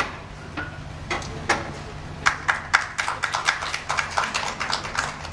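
Scattered applause from a seated audience: separate handclaps, a few at first, then a denser run of claps from about two seconds in. A steady low hum runs underneath.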